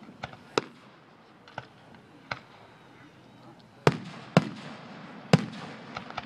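Aerial fireworks shells bursting overhead: a series of about nine sharp bangs at uneven intervals, each with a short echo, the three loudest coming in the second half.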